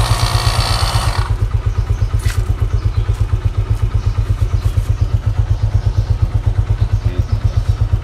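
Compact portable electric tyre inflator running with a rapid, steady, low pulsing as it pumps air into a motorcycle tyre's inner tube. A hiss of air sounds at first and stops about a second in.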